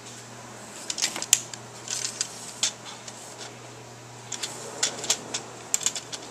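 White plastic Nano Habitat track panels clicking and clacking as their edge clips are handled and snapped together: scattered sharp clicks, with a lull in the middle.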